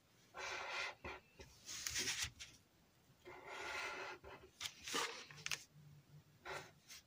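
Felt-tip Sharpie marker drawing on a paperboard carton: several short scratchy strokes with brief pauses between them.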